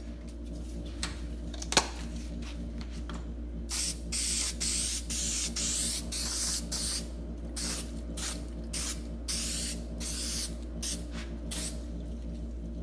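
Aerosol can of spray adhesive being sprayed in a rapid series of short hissing bursts, starting a few seconds in, over a low steady hum. A single sharp click comes shortly before the spraying starts.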